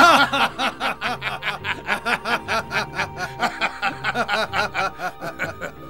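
Men laughing in a quick run of chuckles, loudest at first and tapering off near the end.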